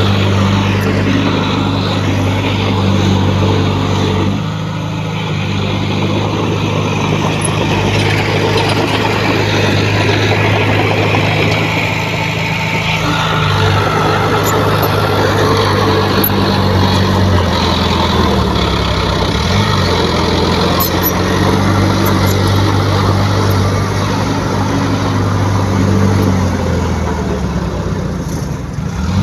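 Heavy diesel engine of earthmoving equipment running, its pitch shifting several times as throttle and load change, with a brief rise and fall in pitch about two-thirds of the way through.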